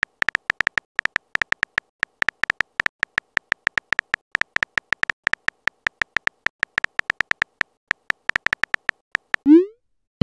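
Phone keyboard typing sound effect: a quick, uneven run of clicks as a text message is typed, then a short blip rising in pitch near the end as the message is sent.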